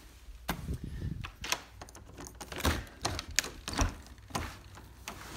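A house's exterior door being unlocked and opened by hand: a series of sharp clicks and knocks from the lock, knob and door over about four seconds.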